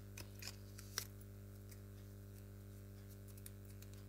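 A few faint clicks and small handling sounds from crafting work, the sharpest about a second in, over a steady low hum.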